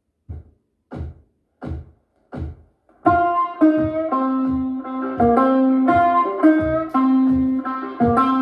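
Music played back through an LG SP2 2.1-channel soundbar with built-in subwoofer: four evenly spaced count-in hits, then about three seconds in, guitar-led music with a steady bass beat starts.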